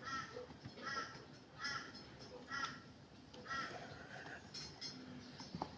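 Faint crow cawing about five times, roughly once a second, followed by a single light click near the end.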